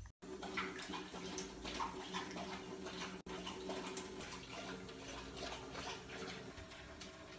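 Water running from a tap into a sink while a cat laps from the stream, making irregular wet lapping clicks over the flow. A steady low hum runs underneath.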